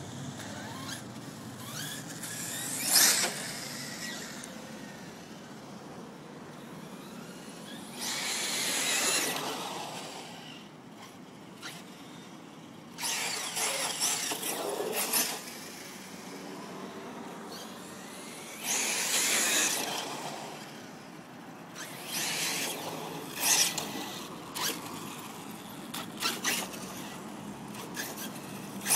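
Electric RC truggy's brushless motor (Castle Creations CM2200) whining in repeated short bursts of hard throttle, rising and falling in pitch, with tyres scrabbling on tarmac; about six bursts separated by quieter spells.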